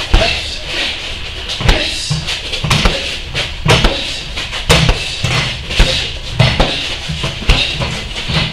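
Strikes landing on Muay Thai pads: sharp slaps, about one a second.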